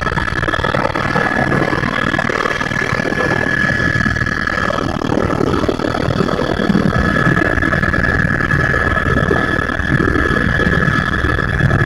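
Helicopter engine and rotor running steadily, heard from inside the cabin: a dense low drone with a steady high whine on top, which dips for a few seconds midway and then returns.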